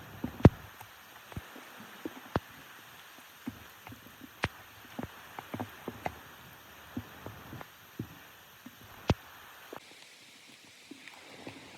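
Rain, with large single drops striking a surface as sharp taps at irregular intervals over a soft steady hiss.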